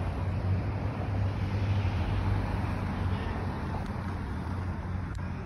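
A steady low hum over a rumble of outdoor background noise, easing slightly near the end.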